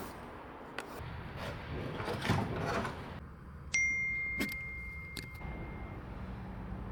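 Handling noise and a few clicks, then just past halfway a metal object is struck once and rings with a clear tone that fades over about two seconds.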